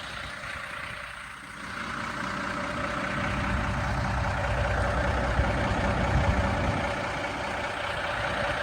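Heavy truck engine running steadily, getting louder about a second and a half in and then holding level.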